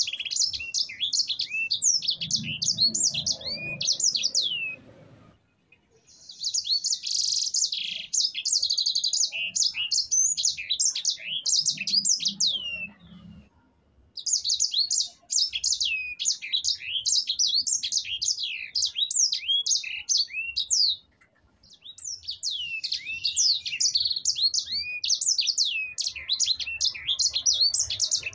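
Sanger finch singing its long rolling song: fast strings of high, sharply gliding chirps in phrases of several seconds, broken by three short pauses.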